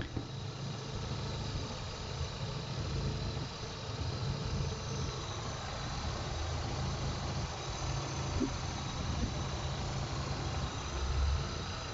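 Opel Astra G 16-valve Ecotec petrol engine idling steadily.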